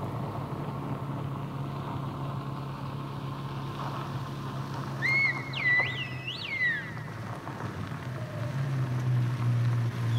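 A car engine runs steadily as the car approaches slowly. About five seconds in, a person whistles a short signal over it: a held high note that jumps up twice and slides down. This is a call in a whistled code language.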